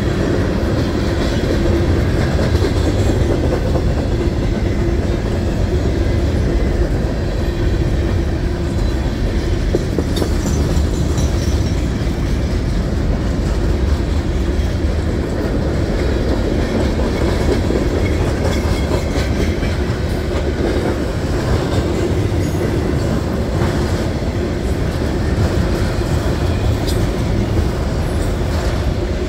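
Freight cars rolling past at close range: a loud, steady rumble of steel wheels on rail, with a few scattered clacks over the rail joints.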